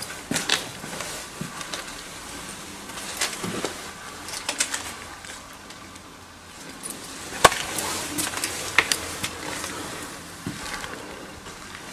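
Footsteps over a gritty, debris-strewn concrete floor, with scattered small clicks and knocks; a single sharp click about seven and a half seconds in is the loudest.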